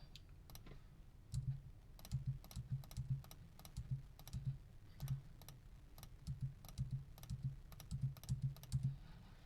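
Typing on a computer keyboard: irregular key clicks with dull low knocks, a few a second, starting about a second in and stopping near the end.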